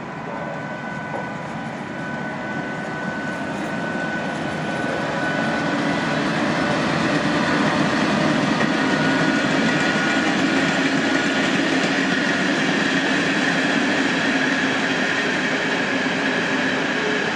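Electric locomotive-hauled passenger train approaching and rolling past, its wheel and rail noise growing louder over the first several seconds and then holding steady as the coaches go by. A thin high whine runs through the first half and fades out.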